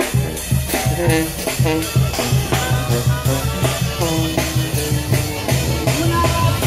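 Loud music with a steady, even drum beat and a melody over it.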